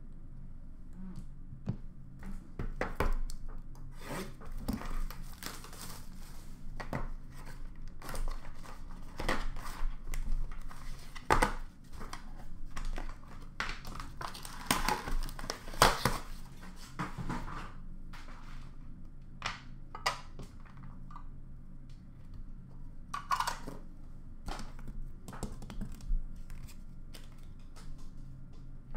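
A cardboard card box being torn open and handled: irregular tearing, rustling and crinkling of cardboard and wrapping, busiest through the first two-thirds, then scattered taps and rustles.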